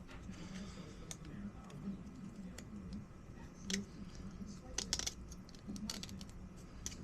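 Irregular light clicks and ticks, a few a second, from handling and trimming a freshly crimped SCSI ribbon cable and its plastic connector, over a low steady hum.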